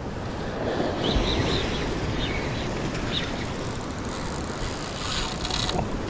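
Wind buffeting the microphone over the wash of surf, with a few faint high chirps.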